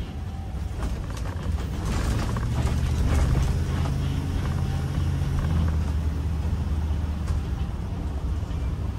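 Inside a Class C motorhome's cab on a Ford chassis while driving: the engine hums steadily, overlaid by creaks and squeaks from the rear leaf springs working over bumps, a cluster about two seconds in and another later. The spring creaking persists even though the springs were recently lubricated.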